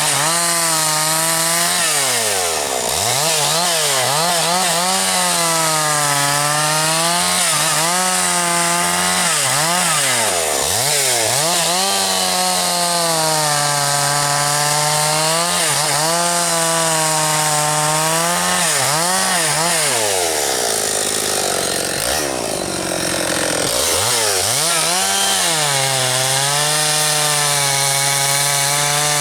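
Two-stroke chainsaw running hard at high revs while cutting firewood. Its pitch drops sharply and climbs back again and again as it pulls down and recovers. About two-thirds of the way in there is a short stretch of rougher, lower, noisier sound before the high steady note returns.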